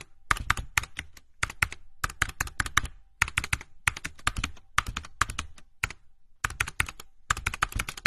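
Computer keyboard typing sound effect: rapid runs of key clicks in short bursts, broken by brief pauses and a longer pause about six seconds in.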